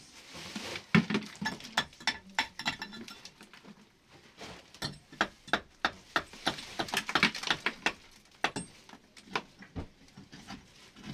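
A rapid, irregular series of light taps and clinks from hard objects striking, in two runs with a brief lull about four seconds in.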